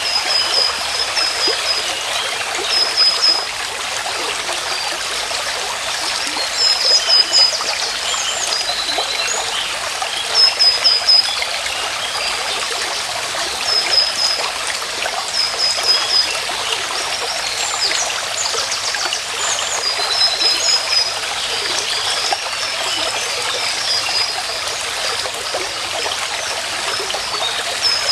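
A stream running steadily over stones, with a bird's short high call repeating every two to three seconds above it.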